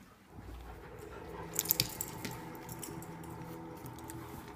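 Two German shepherd puppies play-fighting, with low growling throughout and a few sharp clicks about a second and a half in.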